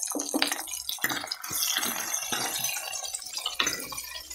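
Chopped small onions sizzling and crackling in hot coconut oil in a clay pot, stirred with a steel ladle.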